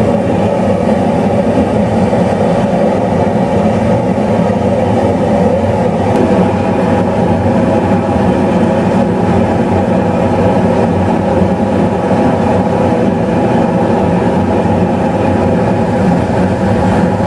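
Gas forge firing: the burner makes a steady rushing noise.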